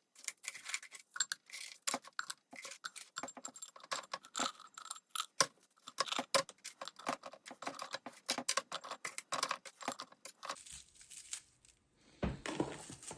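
Brittle freeze-dried potato pieces crackling and clicking as they are crumbled by hand and rattled into a container: a dense run of sharp crisp clicks that thins out near the end.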